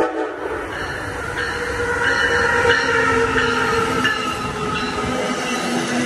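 Amtrak Northeast Regional passenger train approaching and rushing past at speed. The rumble of its cars grows louder from about two seconds in, with several steady tones held over it.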